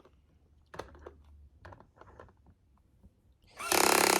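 Light clicks and knocks of parts being handled, then a small electric drill running in a short loud burst near the end, driving a screw into the toy car's parts.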